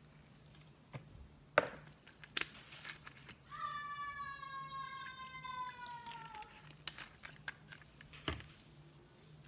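Clicks and knocks of a plastic rubbing-alcohol bottle and a small cup being handled, the sharpest about one and a half seconds in. In the middle a long whine of about three seconds slides slowly down in pitch.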